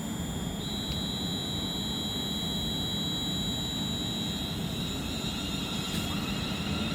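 Class 350 Desiro electric multiple unit moving at the station: a steady rumble, with a high electric traction whine that comes in about half a second in and picks up a warble near the end.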